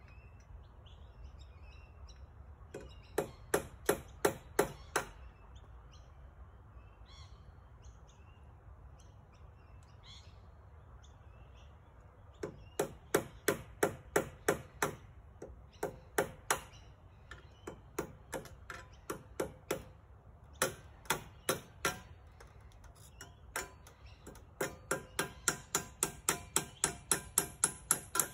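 Hammer striking nails into treated-pine shed framing in runs of sharp, ringing blows with pauses between, the last run a steady quick series of strikes. Birds chirp faintly in the gaps.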